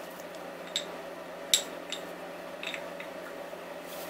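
Light metallic clicks and taps, about five of them with the loudest about a second and a half in, as brake pads are handled and fitted into a scooter's front brake caliper, over a steady background hum.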